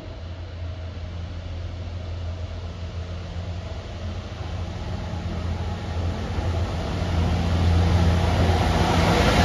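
Class 66 diesel locomotive's two-stroke V12 engine running with a steady low hum as it approaches, growing louder. The rumble of the train on the rails builds up near the end.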